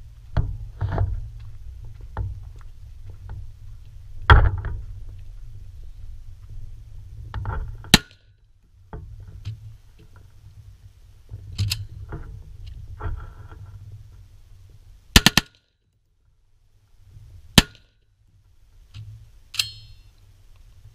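An AR-style rifle being handled and readied at a shooting table: a handful of sharp metallic clacks, two in quick succession about fifteen seconds in, the last with a short metallic ring. Low wind and footstep rumble on the microphone runs under the first half.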